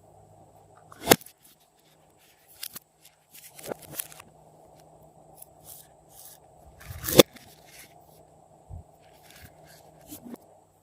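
Store-bought slime being worked by hand, giving scattered sticky clicks, crackles and pops, with two sharp pops about a second in and about seven seconds in the loudest.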